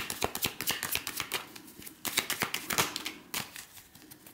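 A deck of oracle cards being shuffled by hand: a rapid patter of card edges slapping together for about two seconds, thinning into a few separate snaps before it fades near the end.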